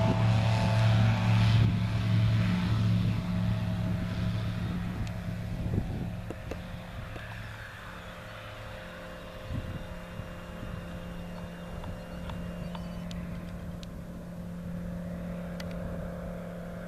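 Light sport aircraft's single propeller engine running at full take-off power, a steady drone with a low hum. It is loudest as the plane rolls and lifts off, fades over the first several seconds as it climbs away, then holds fainter.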